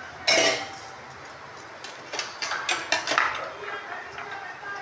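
Chana dal grains rattling and scraping against a steel plate as a hand stirs through them, in a run of short clicks about two to three seconds in. A short loud sound comes about a third of a second in.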